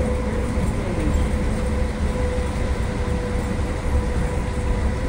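Electric trolleybus running through a tunnel, heard from inside the cab: a steady low rumble with a steady hum over it.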